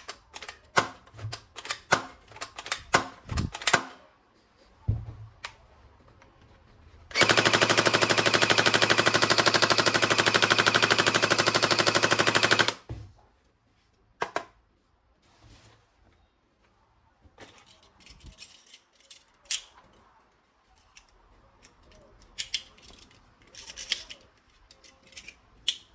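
Clicks and snaps of plastic toy guns being handled, then a toy gun's rapid-fire machine-gun rattle running loud and steady for about five seconds before cutting off, followed by more plastic clicks.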